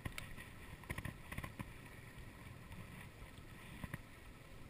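Faint, steady wind and water noise around a small open boat, with a few soft knocks and clicks, a cluster about a second in and one near the end.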